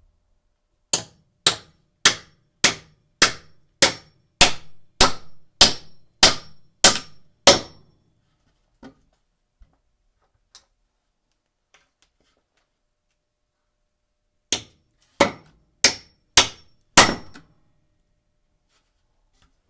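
Hammer driving a nail into wood: a run of about a dozen strikes, roughly two a second, then a few faint taps. After a pause of a few seconds comes a second run of five strikes.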